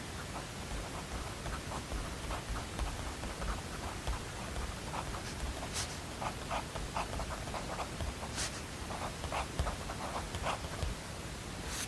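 Steady white-noise hiss with irregular small ticks, scratches and rustles over it, a few sharper ones standing out.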